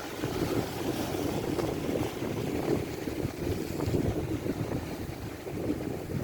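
Strong wind buffeting the microphone, a gusting, uneven rumble.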